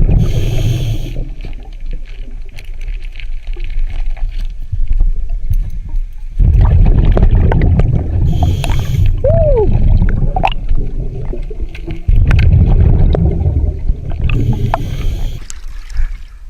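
Scuba regulator breathing heard underwater: a short hiss on each inhale, three times, and long low rumbling bubble bursts from the exhales in between.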